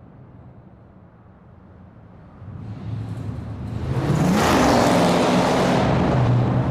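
Muscle car engine idling low, then revving up about two and a half seconds in and holding loud high revs for a couple of seconds before easing off near the end.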